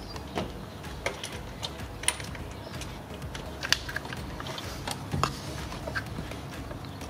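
Small plastic clicks and rattles of an engine wiring harness and its connectors being handled by hand. The clicks come irregularly, a handful of them, over a low steady hum.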